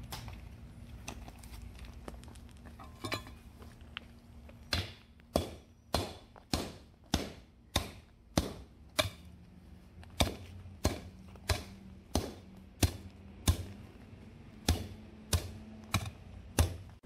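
Steel hand tamper pounding gravel road base in a pothole, compacting the base layer before the patch goes in. About five seconds in it starts striking in a steady rhythm of roughly one and a half blows a second, some eighteen thuds with two short pauses.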